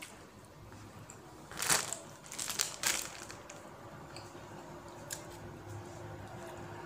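Plastic bread bag crinkling as it is handled, in a few short sharp bursts between about one and a half and three seconds in, followed by faint small ticks.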